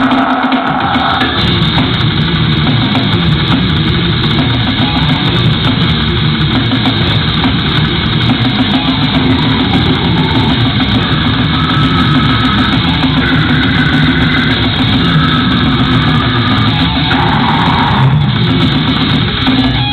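Live metal band playing loud: distorted electric guitars over a drum kit, without a break.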